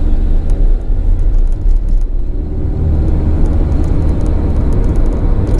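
Road and engine noise inside a moving car's cabin: a steady low rumble at cruising speed.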